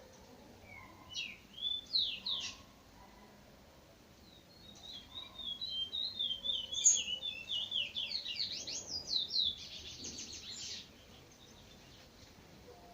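A songbird singing: a few short whistled glides, then a longer song of quick whistled notes that ends in a fast trill of sweeping notes, stopping about eleven seconds in.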